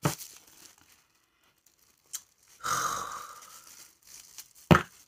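Packaging being torn open by hand, a rustling tear lasting about a second, then a single sharp knock near the end.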